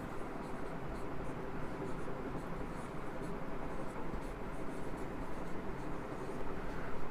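Marker pen writing on a whiteboard: a run of short scratchy strokes as words are written out by hand, over a steady room hiss.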